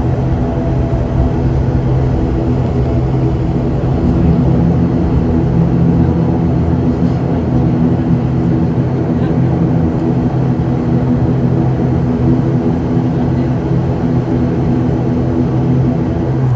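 ATR 72-600 turboprop's Pratt & Whitney PW127M engines and propellers droning steadily, heard as constant cabin noise with several steady low propeller tones.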